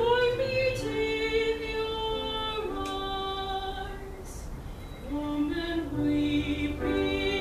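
A woman singing a slow hymn solo, holding long notes, with piano accompaniment.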